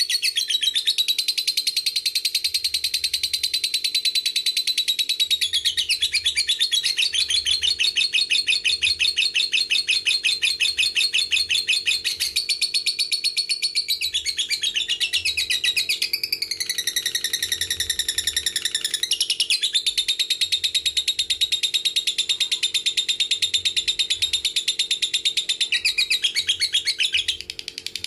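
Fischer's lovebird singing 'ngekek': a long, unbroken, rapid high-pitched chattering trill. About two-thirds through, the chatter turns briefly into a more drawn-out, pitched call before the rapid chatter resumes. It drops off near the end.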